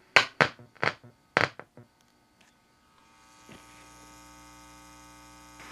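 A handful of sharp pops from the speaker of a 1965 Admiral solid-state stereo amplifier as a test capacitor is touched from a transistor collector to ground, then a brief quiet while the capacitor shunts the signal. About three and a half seconds in, a steady hum with hiss comes back through the speaker. This is the fault noise arising in the amplifier after the volume control.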